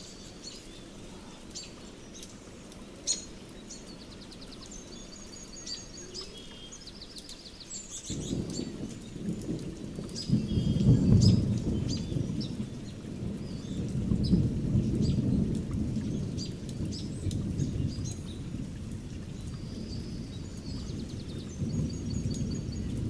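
Birds chirping and trilling throughout. A low rumble comes in about eight seconds in, is loudest a few seconds later, and then goes on unevenly under the birdsong.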